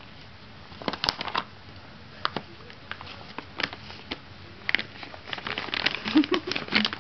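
Large plastic-foil dog-food bag crinkling and rustling in irregular bursts as a dog noses and digs into it and a hand presses it down. A couple of brief vocal sounds come near the end.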